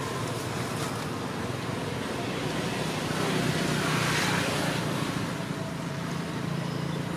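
Steady outdoor background rumble and hiss, swelling briefly about four seconds in.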